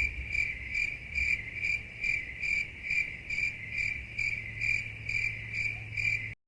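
Crickets chirping in a steady rhythm of about two chirps a second, with a faint low hum underneath, cutting off suddenly near the end: the 'crickets' meme sound effect used for awkward silence.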